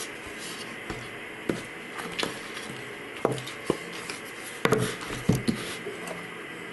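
Wooden cutting board and round metal baking pan knocking and clunking together as the pan of set pumpkin jelly is turned over onto the board: about eight short, irregular knocks.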